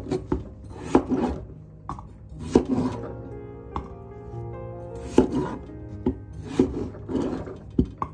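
Chef's knife chopping peeled raw potatoes on a wooden cutting board: irregular sharp knife strikes against the board, often two in quick succession, about a dozen in all.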